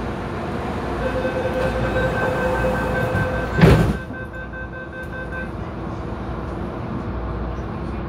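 MTR Tung Chung line A-train's door-closing warning beeping at the platform, with the doors shutting in a single loud thump about three and a half seconds in. The train's steady hum and rumble carry on underneath.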